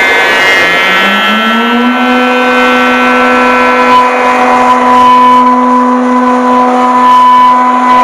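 Mazak Hypersonic 1400L high-speed machining center milling: the spindle and cutter rise in pitch over the first two seconds, then hold a steady whine with overtones, over a hiss of coolant spray and flying chips.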